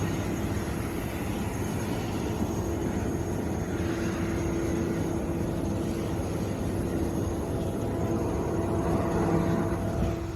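Steady aircraft engine noise, a continuous drone with a constant hum, swelling slightly near the end.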